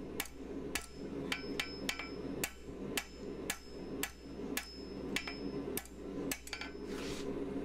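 Hand hammer striking a 3/8-inch square steel bar on an anvil, about two blows a second at an even pace. Each blow gives a sharp clang with a short metallic ring, over a steady low hum.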